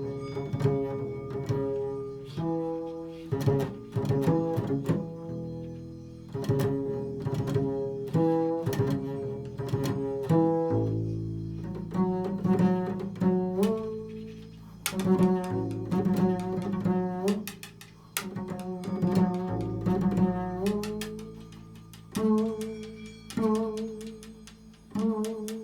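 Slow improvised music on a string instrument: notes and chords struck or plucked one after another, each ringing and fading. A low note is held underneath for a stretch in the middle.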